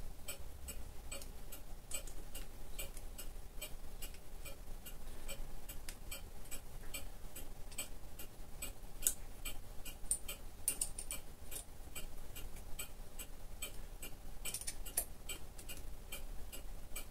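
A mechanical clock ticking steadily, about three ticks a second, with a few light metallic clinks from hand work on a dividing head's index plate.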